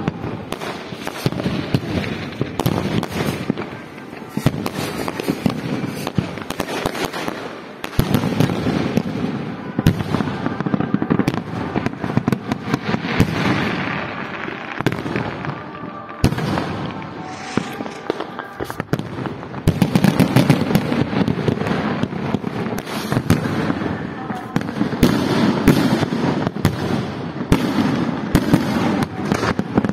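Aerial firework shells bursting one after another in a dense barrage of bangs and crackles over a constant rumble, growing louder about eight seconds in and again from about twenty seconds in.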